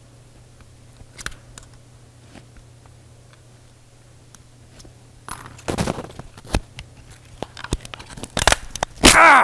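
A Canon Rebel DSLR's casing being pried and forced apart by hand. After a few faint clicks, from about five seconds in there is a run of cracking, scraping and clicking, ending in a loud crunch near the end as the part gives way.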